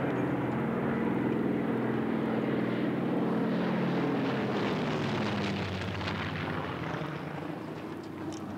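A propeller-driven plane makes a low flyover. Its engine drone drops in pitch as it passes overhead about halfway through, then fades away.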